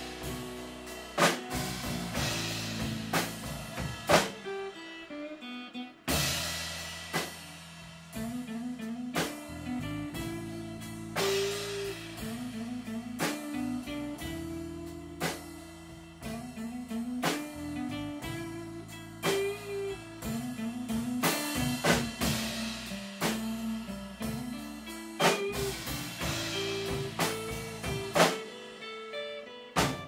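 Live band playing an instrumental passage: guitar working through a repeated stepping riff over a drum kit, with several cymbal crashes.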